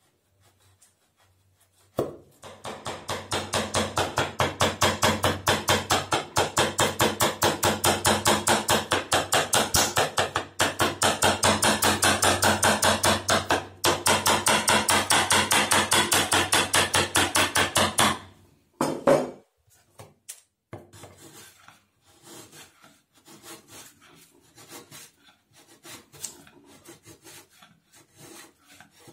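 Steel bench chisel cutting a recess into a pine board. A fast, even run of cutting strokes, several a second, starts about two seconds in and pauses briefly twice. After one loud stroke it gives way to quieter, scattered paring strokes.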